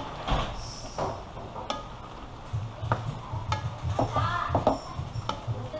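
Wooden spatula stirring chicken, vegetables and tomato sauce in an aluminum wok: scattered knocks and scrapes of the spatula against the pan, over a low steady hum.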